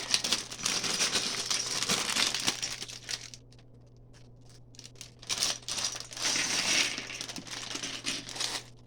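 Thin plastic LEGO parts bag crinkling as it is handled. The crinkling comes in two spells with a quieter pause of about two seconds between them.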